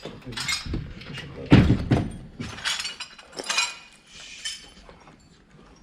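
Clinking and clattering of loose debris, glass and hard objects being knocked or stepped on, with a heavier thump about one and a half seconds in; the clatter thins out toward the end.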